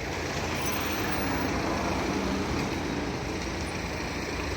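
Street traffic: a steady rush of passing vehicles, with a low engine hum from about one to two and a half seconds in.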